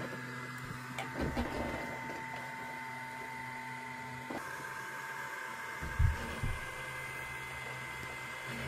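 WEEFUN Tina2 PLUS desktop 3D printer running its bed-probing routine before a print: a steady whine and hum from its stepper motors and fan, with a couple of soft low thumps about six seconds in.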